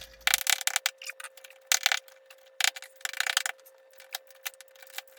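Light, rapid hammer taps in three quick bursts, then scattered lighter clicks, over a faint steady hum.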